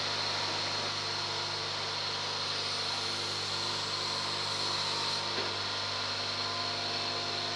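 Steady machine hum with a faint high whine, unchanging throughout; no knocks or tool strikes.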